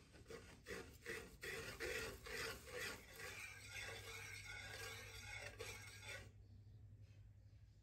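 Wire whisk scraping and swishing against a metal pan as flour is whisked into milk to make a batter. Quick strokes come first, then a smoother circling swish that stops about six seconds in.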